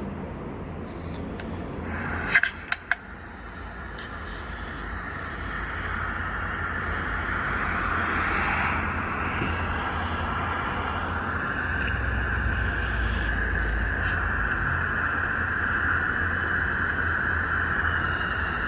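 A voice recorder playing back a recording through its small speaker: a few clicks, then a steady, wind-like hiss and low rumble with no voice in it.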